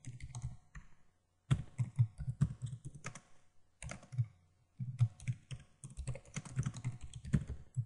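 Typing on a computer keyboard in quick runs of keystrokes, broken by short pauses, the longest about a second in.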